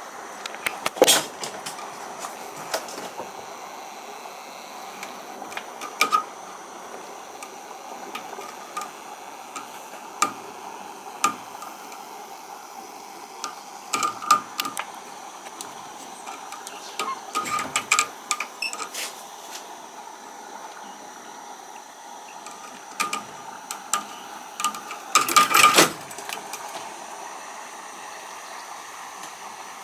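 Kitten chattering at birds, the clicking, chirping call a cat makes at prey it can't reach. It comes in short bursts of rapid clicks every few seconds over a steady background hiss, the loudest shortly after the start and again about four seconds from the end.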